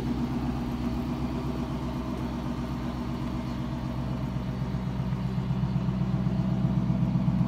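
2018 Lexus LC 500's 5.0-litre V8 idling steadily, getting a little louder toward the end.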